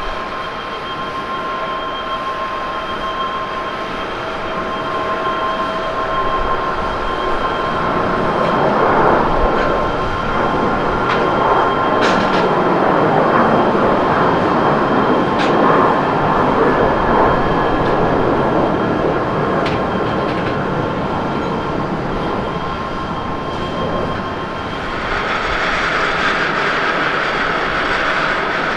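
Boeing 737-800 jet engines on its takeoff run: a steady whine of the fans, with the roar of takeoff thrust swelling from about eight seconds in as the jet rolls past and climbs, then easing off. Near the end a different, higher engine whine takes over from an Airbus A350-900 on the runway.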